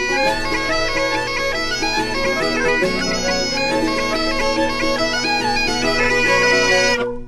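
Intro music: a melody over steady held drone notes, cutting off abruptly near the end.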